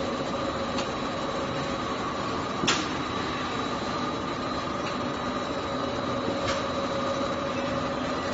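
Steady hum and whine of running factory machinery, punch presses with GSK RB08 robot arms tending them, broken by three sharp clacks, the loudest about two and a half seconds in.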